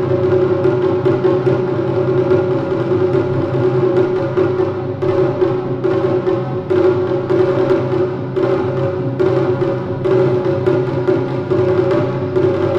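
Taiko drumming: large barrel-shaped nagado-daiko and a small shime-daiko struck with wooden bachi in a dense, unbroken rhythm.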